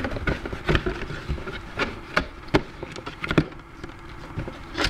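Cardboard box and packaging being handled: several sharp knocks and clatters with rubbing between them.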